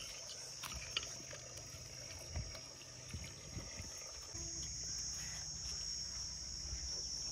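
Steady high-pitched insect chorus outdoors, with a low hum coming in a little past the middle.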